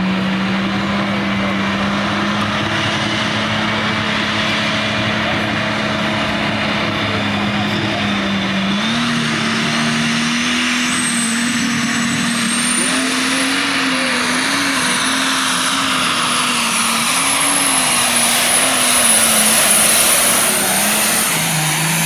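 Super stock pulling tractor's turbocharged engine running at the sled, then revving up about nine seconds in. A high turbo whistle climbs as the boost builds and holds, and the sound is loudest near the end as the tractor pulls.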